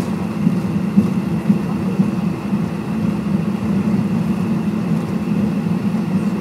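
Cabin noise of a Cessna Citation X taxiing: its Rolls-Royce AE3007 turbofans and the ground roll make a steady low hum and rumble, with a few faint steady tones above it.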